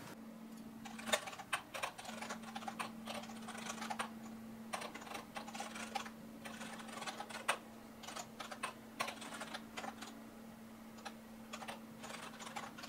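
Typing on a laptop keyboard: quick, uneven key clicks with short pauses, over a faint steady hum.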